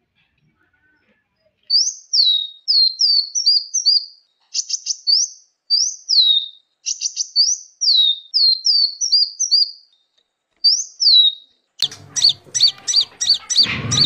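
Caged songbirds singing: a string of high, clear whistled notes, each sliding downward, broken by a couple of quick trills. Near the end this gives way to a fast run of evenly repeated chirps over a low rustle.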